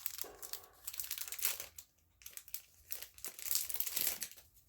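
Packaging crinkling and rustling in bursts as an item is handled and unwrapped.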